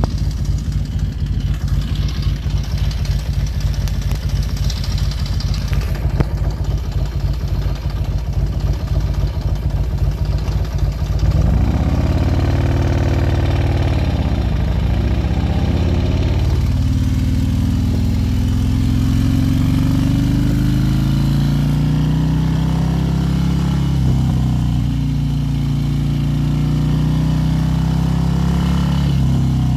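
Harley-Davidson Road King's V-twin engine idling with a fast, even low pulse. About eleven seconds in it gets louder and pulls away, its pitch rising and falling several times before it settles into steadier running with slow swells as the bike rides on.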